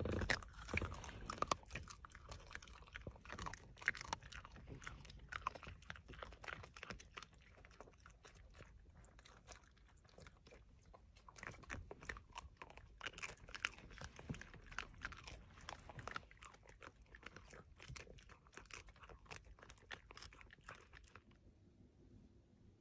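Miniature dachshund gnawing and crunching on a chew stick: a long run of crisp, irregular crunches that stops near the end.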